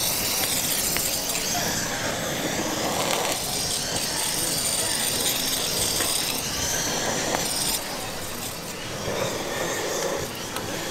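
Chicken feet sizzling over high heat, a steady hiss that eases off about eight seconds in.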